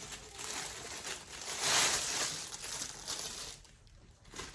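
Plastic packaging crinkling and rustling as an item is handled and unwrapped, loudest about two seconds in, then dying down.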